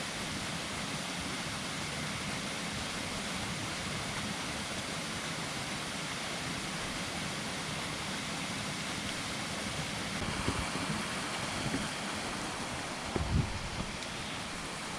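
Steady rush of a plunge waterfall and river running high after heavy rain, an even hiss with no break. A few short low bumps come near the end.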